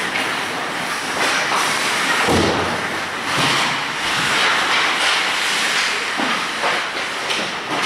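Ice hockey play heard from rink-side: a steady hiss of skate blades scraping and carving the ice, with a few knocks of sticks and puck.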